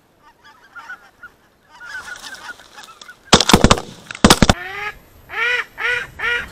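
Greater white-fronted geese calling overhead, then a rapid volley of shotgun shots in two bursts about a second apart. A run of evenly spaced calls, about two a second, follows the shots.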